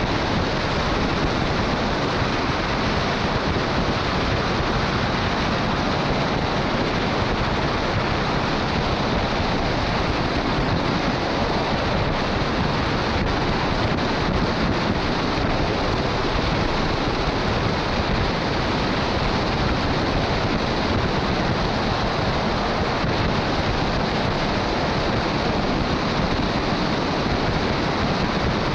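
Steady rush of wind over a roof-mounted camera on a truck driving at highway speed, mixed with the hiss and spray of tyres on a wet road. It is an even noise with no breaks or changes.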